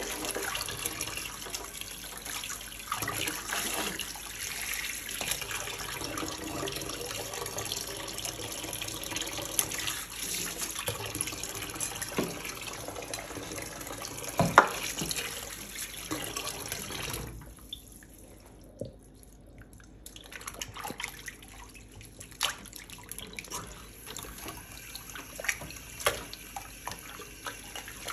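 Tap water running into a stainless steel sink while cow tripe and intestines are scrubbed and rinsed by hand, with splashing and one sharp knock about halfway. The running water cuts off about two-thirds of the way in, leaving scattered splashes and clatters as the pieces are handled in the water.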